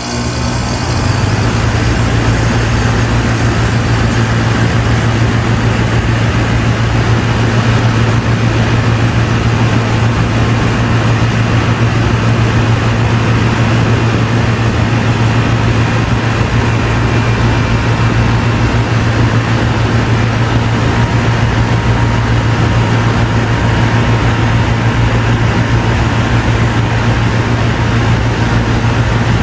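Air conditioner running steadily: a loud, even rush of air over a constant low hum.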